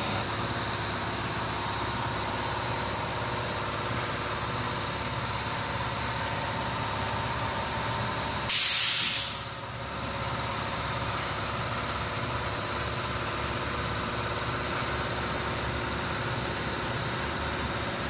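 Steady electric motor hum with a high whine. About eight and a half seconds in, a loud hiss of spray or blown air lasts about a second and fades out.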